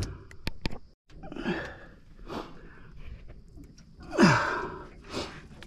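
A man breathing hard and grunting with effort: four heavy breaths, the loudest about four seconds in, after a few short clicks near the start.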